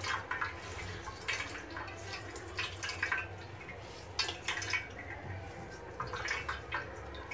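Water dripping and spattering in irregular drops from a muslin cloth of chhena (fresh curds) as it is twisted and squeezed, falling into a plastic colander.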